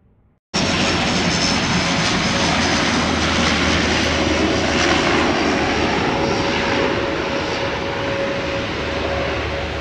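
Jet engines of a Boeing 737-800 running at taxi power as it taxis past: a loud, steady jet rush with a constant whine. It cuts in abruptly about half a second in and eases slightly near the end.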